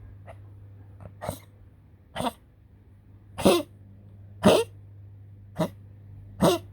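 A poodle coughing over and over in a fit: six sharp coughs about a second apart, the loudest in the middle of the run.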